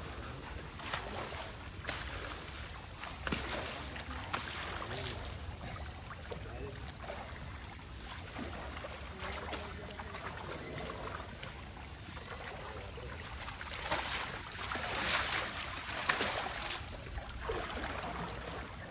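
Water splashing and swishing as an elephant is bathed and scrubbed, in irregular strokes that grow louder for a few seconds near the end, over a low steady rumble.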